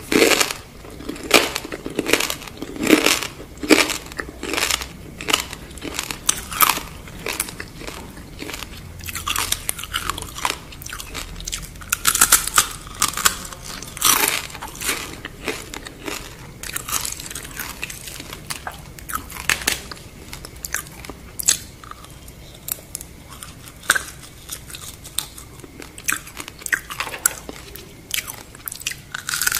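Crunching and chewing of deep-fried scorpion: brittle fried shell cracking in quick bites, close to the microphone. The crunches come thick and fast for the first several seconds, then more sparsely in bunches.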